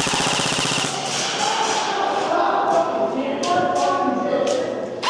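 Airsoft gun firing a rapid full-auto burst, then voices shouting over scattered sharp single shots or BB hits. A second rapid burst comes near the end.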